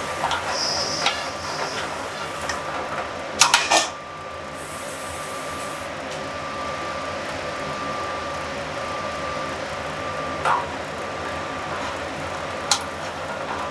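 Steady hiss of a restaurant kitchen's gas range and exhaust hood, with metal tongs clanking against a sauté pan of cauliflower. A quick cluster of clanks comes about three and a half seconds in, and single clinks come later.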